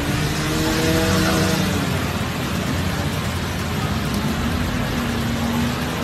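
Road traffic driving through a flooded street in heavy rain: vehicle engines running, their pitch rising and falling, over a steady hiss of rain and water.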